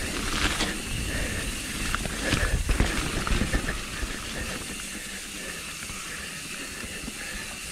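Mountain bike rolling fast down a muddy forest singletrack: a steady hiss of tyre noise and rushing air, with the bike rattling and knocking over roots, heaviest about two to three seconds in.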